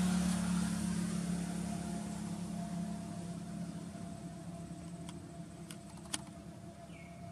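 A low, steady engine hum that slowly fades away, with a few faint sharp clicks about five to six seconds in.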